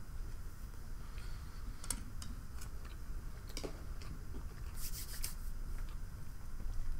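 Faint scattered clicks and light rubbing of things being handled at a table, with a brief rustle about five seconds in.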